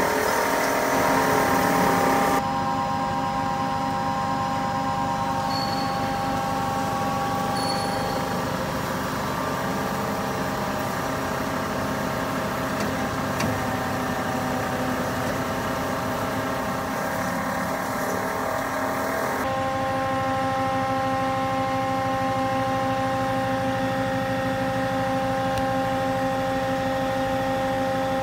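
Hyd-Mech V18A vertical band saw running: a steady mechanical hum with several steady whining tones. The sound changes abruptly about two seconds in and again about two-thirds of the way through.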